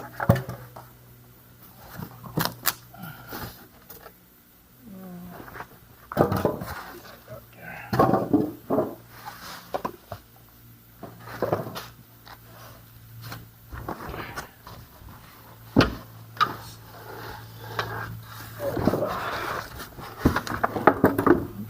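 Unpacking a cardboard box by hand: irregular rustling, scraping and knocks of packaging being moved and pulled out, over a faint steady hum.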